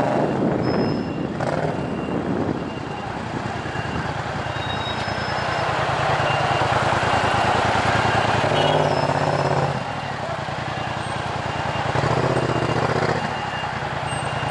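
A 2014 Yamaha MT-07's parallel-twin engine running through a Tiger full exhaust system with decat headers, pulsing evenly at low speed in stop-and-go traffic. The revs rise and fall with the throttle, dropping about two-thirds of the way through and picking up briefly near the end.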